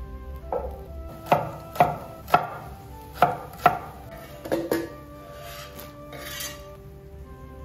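Cleaver chopping bamboo shoots on a wooden cutting board: five sharp chops over a couple of seconds, then a few lighter ones. Near the end comes a short scrape as the slices are pushed off the board into a wok of boiling water.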